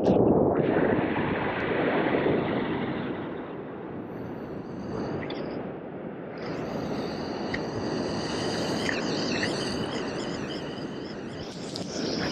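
Ocean surf breaking and washing over a low rock ledge, loudest in the first couple of seconds. About six seconds in a high, wavering whine joins the wash and fades out near the end.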